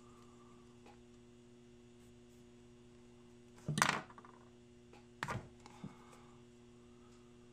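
A few light knocks and clicks from a small box capacitor and its wire leads being handled on a wooden bench. The sharpest knock comes a little under 4 seconds in, and two softer clicks follow. A faint steady electrical hum runs underneath.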